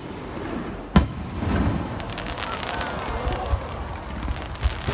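Aerial fireworks bursting: one sharp, loud bang about a second in, then a spell of rapid crackling pops, and a few more sharp pops near the end.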